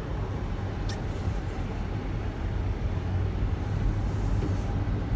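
A car driving, with a steady low engine and road rumble. There is a brief high squeak about a second in.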